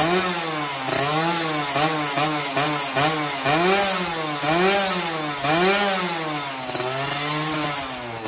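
Yamaha F1ZR two-stroke single-cylinder engine revving through a Creampie aftermarket racing exhaust. The throttle is blipped over and over, so the pitch rises and falls about once a second, then settles lower and steadier near the end.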